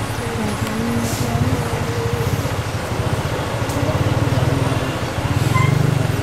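Heavy vehicle's engine idling with a low, steady rumble that gets louder toward the end.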